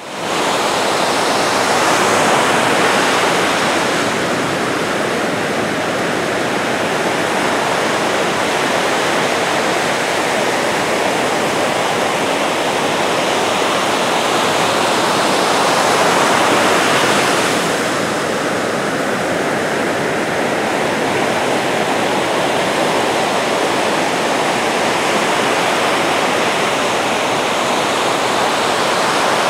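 Steady rush of ocean surf, swelling as waves break a couple of seconds in and again about halfway through.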